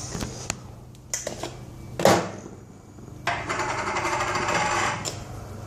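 Coffee-making things being handled and opened: a few light clicks, a sharp knock about two seconds in, then a fast rattling rustle lasting under two seconds.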